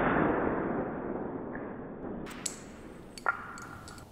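PCP air rifle shooting at aluminium drink cans: a sudden deep boom that fades over about two seconds, then a few sharp clicks and a crack about three seconds in.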